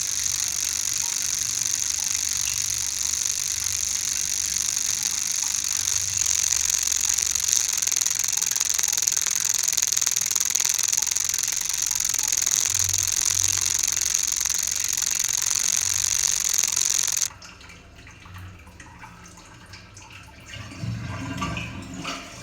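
A steady, loud hiss that cuts off suddenly about seventeen seconds in, leaving a much quieter background with a few low knocks near the end.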